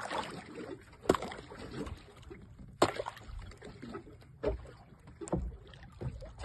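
A large fish being gaffed and hauled up against the side of a small fishing boat: water splashing at the hull, broken by sharp knocks, the two loudest about a second and about three seconds in.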